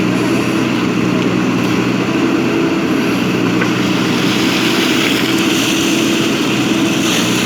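JCB backhoe loader's diesel engine running at a steady speed, a constant loud hum.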